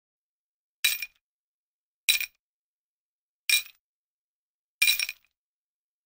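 Four short, bright clinks with a brief ringing tail, evenly spaced about a second and a third apart.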